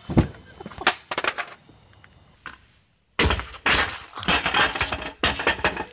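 A few sharp knocks and thumps, then after a brief gap a dense stretch of clattering crashes and knocks.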